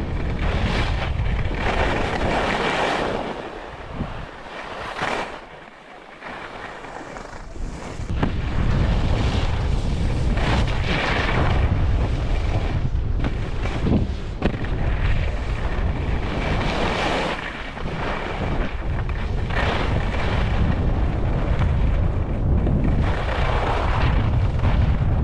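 Wind rushing over the microphone with the hiss and scrape of skis running down a groomed snow slope, swelling and easing every few seconds. The sound drops quieter for a few seconds near the start, then comes back loud.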